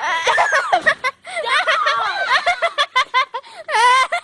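Several people laughing and giggling in quick, short bursts, with a longer high-pitched squeal of laughter near the end.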